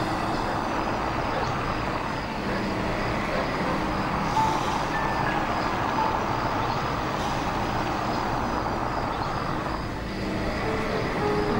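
Car engine running steadily, with road noise.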